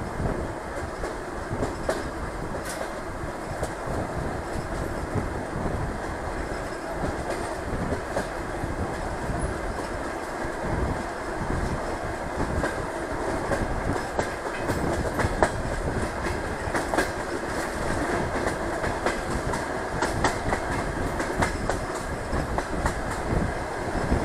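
DR1A diesel multiple unit running along the line, heard through an open carriage window: a steady rumble and rush of air, with the wheels clicking over rail joints now and then.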